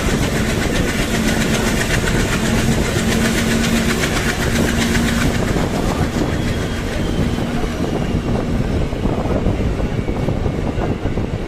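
A diesel train heard from inside a passenger coach while running: the engine in the adjacent coach, really loud, with a steady hum over the rumble of wheels on the track. The hum fades out about nine seconds in.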